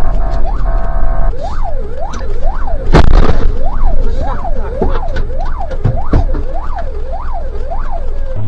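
An electronic siren or alarm sounding, first as a steady tone, then, a little over a second in, switching to a wail that sweeps up and down about twice a second. A single loud bang cuts through it about three seconds in.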